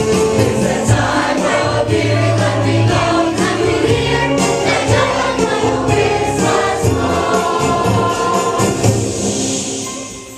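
Church choir singing a Christmas cantata with instrumental accompaniment; the music dies away near the end.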